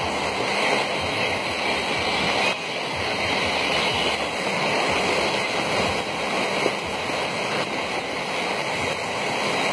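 Floodwater rushing across a road surface, a steady heavy rush of water.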